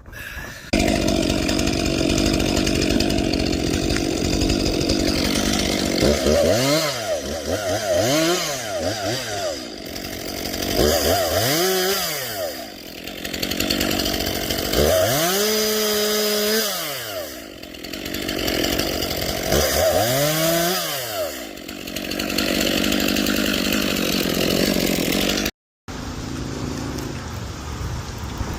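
Chainsaw engine running steadily, then revved up and down four times, each swell rising and falling in pitch over about two seconds. The sound cuts out briefly near the end.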